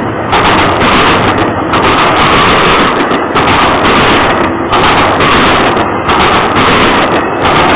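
Double-stack container freight train passing close by: loud, continuous rumble and clatter of steel wheels on the rails, with a brief regular beat about every second and a half as the cars go by.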